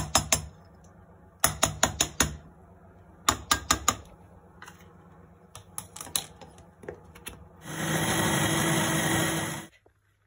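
Quick clusters of sharp clicks and taps from a plastic strainer and mixer-jar lid being handled, then an electric mixer grinder runs for about two seconds, grinding boiled vegetables, and stops abruptly.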